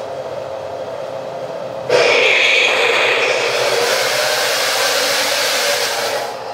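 RC model tank's drive and sound unit running with a steady drone, then about two seconds in a sudden loud hissing rush that holds for about four seconds before cutting back to the drone near the end.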